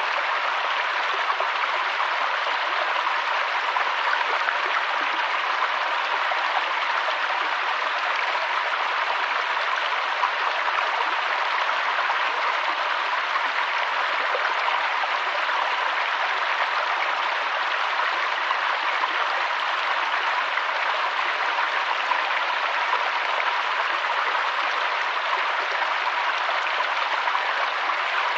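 Waterfall: a steady, even rush of falling water, hissy with little deep rumble, unchanging.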